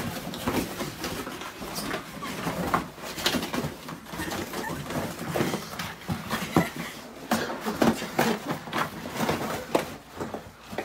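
A dog and a person play-wrestling on a carpeted floor: irregular scuffling, rustling and soft thumps.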